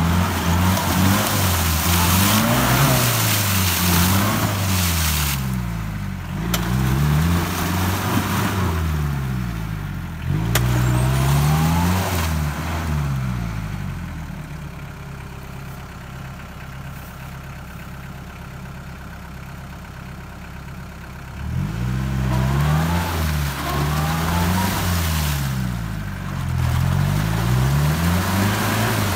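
Off-road 4x4's engine revving hard up and down again and again as its mud tyres churn through a deep mud rut, throwing mud. A little under halfway through it settles to a steady, quieter run for several seconds, then revs up and down again from about two-thirds of the way in.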